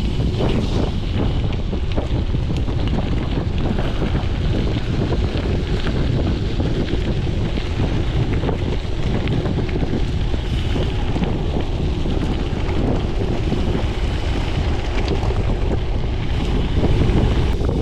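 Wind buffeting a chest-mounted action camera's microphone on a moving gravel bike, a steady loud rumble, with tyres crunching and rattling over gravel.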